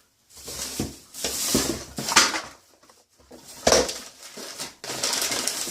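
Rustling and a few light knocks from store-bought items being handled and set down, in several short bursts.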